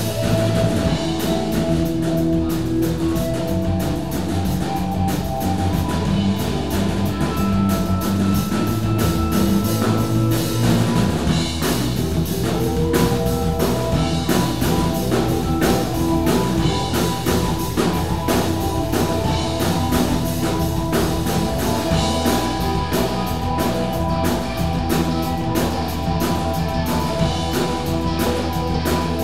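Live rock band playing an improvised jam: electric guitars, bass guitar, keyboard and drum kit, with steady drum beats throughout.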